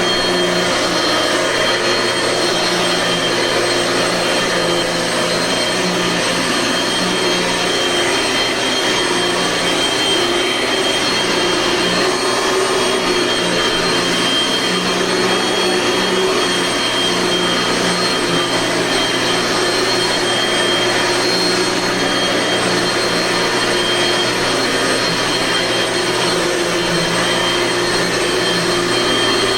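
Dirt Devil bagged vacuum cleaner running steadily, its motor whining at a constant pitch. It is in good working order on a fresh bag and belt, with nothing wrong with it.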